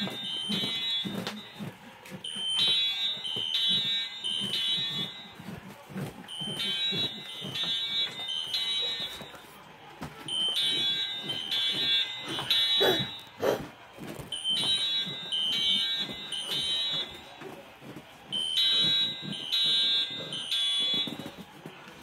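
Fire alarm sounding: groups of high-pitched beeps, switching between two close pitches, repeating about every four seconds.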